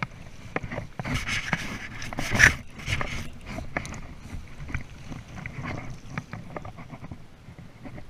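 Splashing of shallow river water as a landing net is swept and lifted through it, with scattered clicks and knocks. The splashing is heaviest between about one and three seconds in, loudest around two and a half seconds, then settles.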